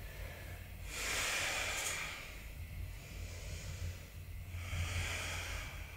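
A woman's slow, audible breaths: a long one about a second in and another near the end, with a faint low hum underneath.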